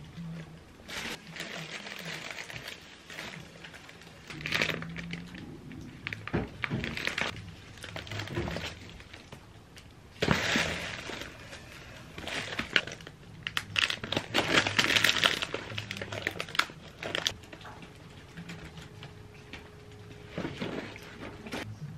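Plastic bags, paper shopping bags and food packaging rustling and crinkling in irregular bursts as groceries are handled and unpacked.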